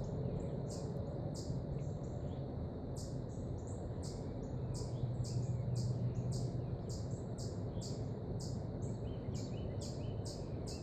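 High, regular chirping, about two to three short chirps a second, over a low steady rumble.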